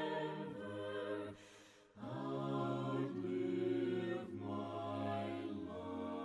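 Soft, slow background music of held, choir-like chords that change about once a second, dropping away briefly about a second and a half in before resuming.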